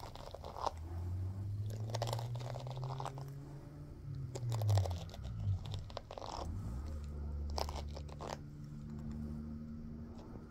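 Scratchy rasps of a pet brush's bristles scraping through a black kitten's fur as it rubs its face against the brush, a short stroke roughly every second. Underneath runs a low steady hum that dips and rises in pitch around the middle.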